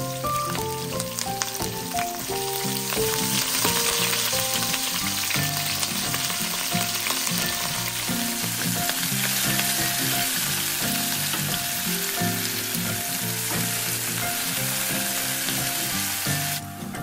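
Sliced onion and chopped greens sizzling in hot oil in a stainless steel pan, stirred with a wooden spoon. The sizzle grows louder about two seconds in, after the greens go in, and cuts off just before the end.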